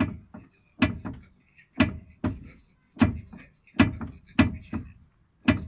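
Repeated sharp metallic knocks from a vehicle's rear axle, about a dozen, often coming in pairs roughly once a second. This is the sign of a fault that has developed in the rear axle.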